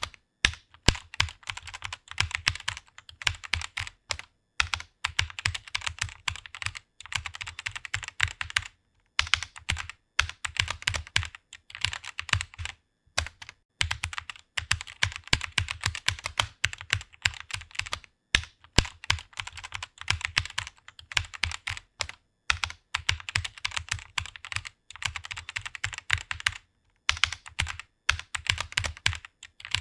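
Fast typing on a computer keyboard: rapid keystrokes in quick runs, broken by brief pauses a handful of times.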